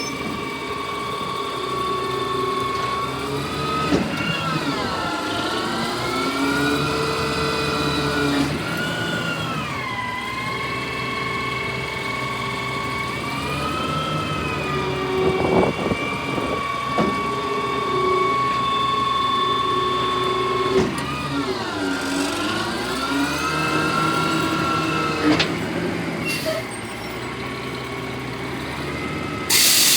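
Garbage truck running, its engine pitch dipping and rising again several times, with a few sharp knocks and a short loud hiss near the end.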